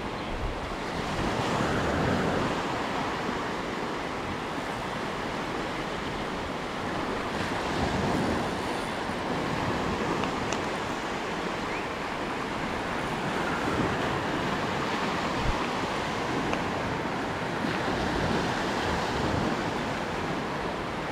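Gulf of Mexico surf washing up a shallow sand beach: a steady rush of small breaking waves that swells and eases every few seconds.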